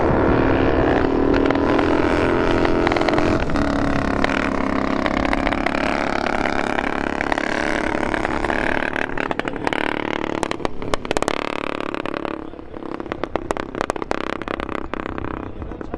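Pre-war motorcycle engines running loud, rising in pitch as one revs up about three seconds in. From about nine seconds in comes a run of sharp crackling pops, and the engine noise falls away somewhat after about twelve seconds.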